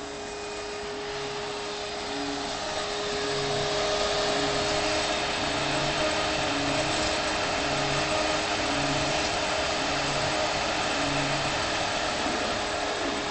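A homemade CNC mill's spindle motor running with a steady tone and hiss as it cuts a polystyrene test piece. The sound grows louder over the first few seconds, and low tones pulse about once a second beneath it.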